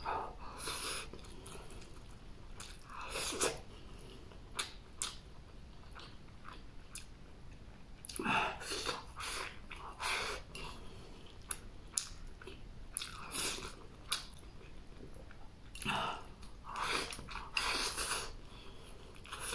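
A person eating rice and chopped stir-fried green hot peppers from a bowl with chopsticks. Mouthfuls are shovelled in and chewed, coming as crackly clusters every couple of seconds.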